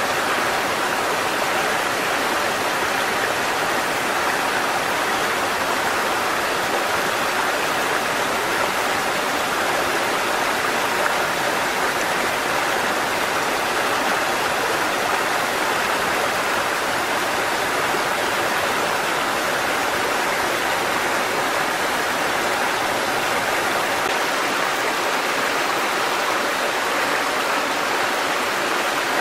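Waterfall: a steady rush of falling water, even and unbroken, brightest in the middle range.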